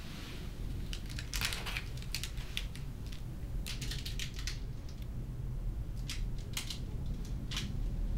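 Crinkling of a small plastic candy wrapper being handled, in several short irregular bursts, over a steady low hum.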